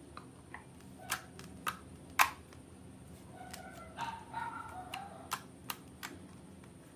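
Homemade slime being squeezed and poked, giving a string of sharp clicky pops with a few short squelches in between.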